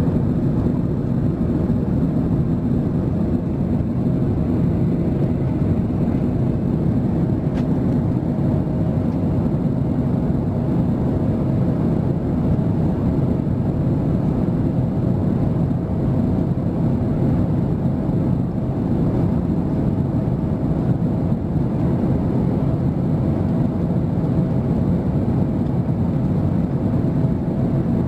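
Steady in-flight cabin noise of a British Airways Airbus A380, heard inside the cabin over the wing: a low, even drone of its Rolls-Royce Trent 900 engines and the airflow, with a faint steady hum above it.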